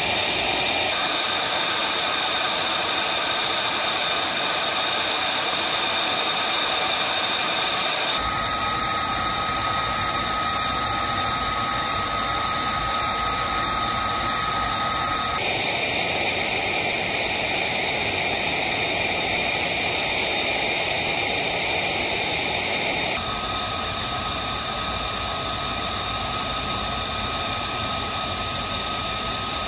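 F-35B Lightning II's F135 turbofan running at idle during a hot-pit refuel: a loud, steady jet whine with several high tones over a rushing noise. The mix of tones changes abruptly three times.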